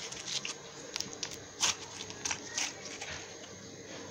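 Crunchy slime being worked by hand, giving irregular crackles and pops, with the sharpest pops a little before halfway through.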